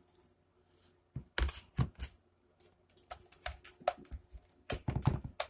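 Sticky homemade slime being stirred and worked with activator, giving an irregular run of short sticky clicks and pops that starts about a second in.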